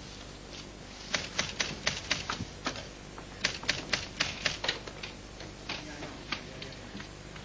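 Typewriter keys clacking in two quick runs of about five strokes a second, then a few scattered strokes.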